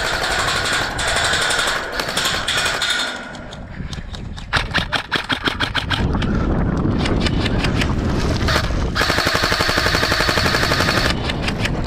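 Airsoft electric guns (AEGs) firing on full auto: short strings of rapid shots from about four seconds in, then one sustained burst of about two seconds near the end.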